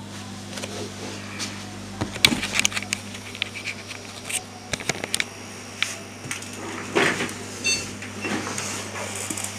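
Low steady hum with scattered clicks and knocks from a handheld camera being moved, and a brief high electronic beep about three-quarters of the way through, as a desktop PC starts up.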